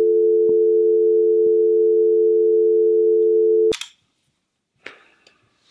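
Telephone dial tone, a steady two-note hum heard on the line after the other end has hung up; it cuts off with a click about three and a half seconds in.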